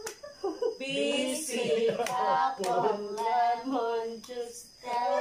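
Several voices singing or chanting together, with a few sharp hand claps.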